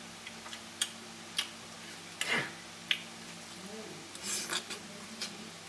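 A person eating from a metal fork: several light clicks of the fork, with breathy chewing noises and a brief hummed murmur about two-thirds through.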